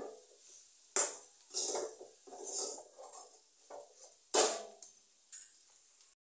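A spoon stirring and scraping potato bhaji in a kadhai: a series of uneven scrapes and clanks against the pan, the sharpest about a second in and again about four and a half seconds in.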